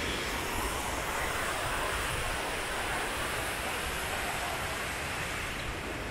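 Steady rushing of river water through a rocky gorge.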